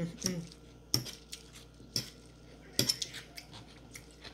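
Cutlery clinking against ceramic plates: several separate sharp clicks, the loudest near three seconds in.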